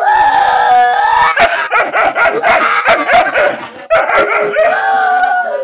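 A dog vocalizing close up: a long drawn-out whining cry in the first second and another near the end, with quick yips and short barks in between.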